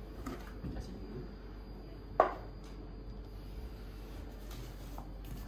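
Quiet handling of a large cardboard sheet and box, with one sharp knock about two seconds in.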